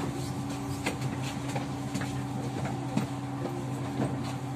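Cabin of a Kyiv-12.03 trolleybus standing at a stop: a steady hum from its onboard electrical equipment, two held low tones, with a few light scattered knocks.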